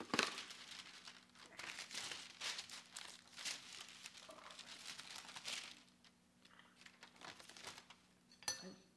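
Sheet of baking paper being spread and smoothed over a baking tray, crinkling and rustling in irregular swishes that die down after about six seconds. A brief clink about eight and a half seconds in.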